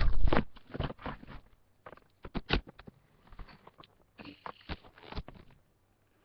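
Handling noise close to the microphone: a loud rustling knock at the start, then scattered light clicks and taps of small objects being moved about.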